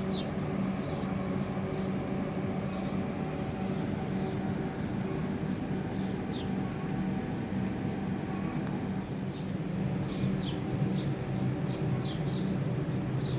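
A diesel train idling with a steady low hum, while small birds chirp over it in quick, short calls.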